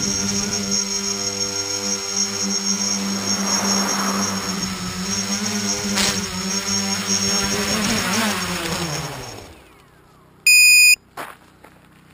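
A multirotor tricopter's electric motors and propellers buzzing steadily, then winding down in pitch and stopping as it sets down in grass. About a second later comes one short electronic beep.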